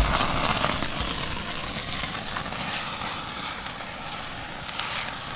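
Flames rushing up from a pan of cooking oil that has caught fire over a campfire, with a few crackles. The sound fades over the few seconds as the flare-up dies down.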